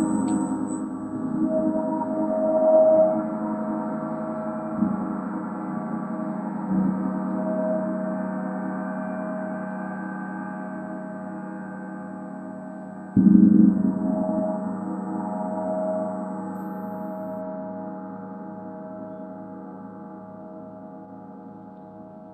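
Planet Mercury gong struck again and again in a continuous wash of ringing overtones. The softer strokes swell and fade, then a stronger stroke about two-thirds of the way through lifts it again before it slowly dies away.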